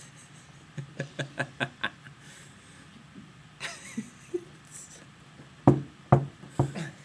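Young men laughing in short bursts, about four a second at first, with three louder, sharper bursts near the end.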